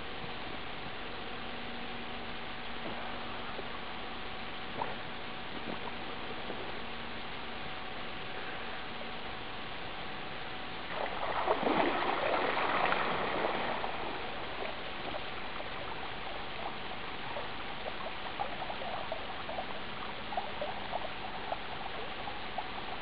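Water splashing and sloshing as a person rises and wades through shallow water, loudest for about three seconds around the middle, then smaller splashes and trickles. A steady hiss and faint hum from the recording run underneath.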